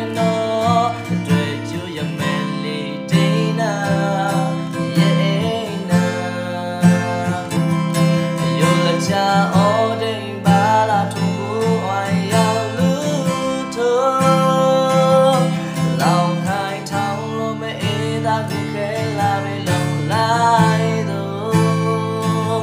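A man singing a Burmese song, accompanying himself on a strummed acoustic guitar.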